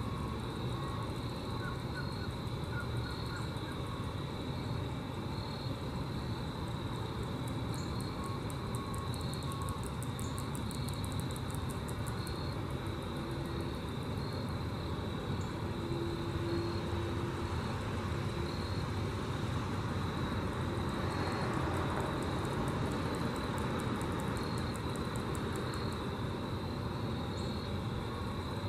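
Grasshoppers stridulating: fast, even trains of high, dry pulses that come in twice, over a steady low rumble and a continuous insect-like chirring.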